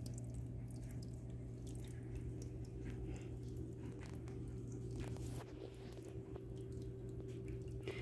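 Water trickling and dripping down rock and wood in a paludarium's small waterfall, faint, with a steady low hum underneath.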